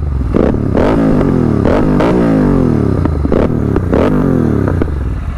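Royal Enfield 650 parallel-twin revved through Red Rooster aftermarket exhausts in about six quick throttle blips, each jumping up and falling back. Sharp pops and crackles come on the overrun from its Code6 tune.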